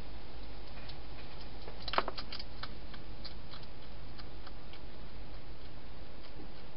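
Wild hedgehog eating at a feeding bowl: sparse crunching clicks, with a louder quick cluster of crunches about two seconds in, over a steady low hum.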